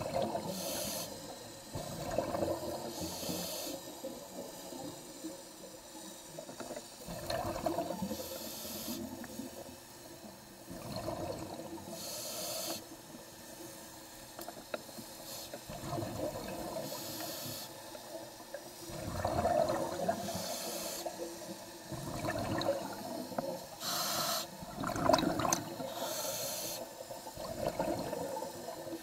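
Scuba diver breathing through an open-circuit regulator underwater: a short hiss on each inhale, then a surge of exhaust bubbles on each exhale. About seven breaths, roughly one every four seconds.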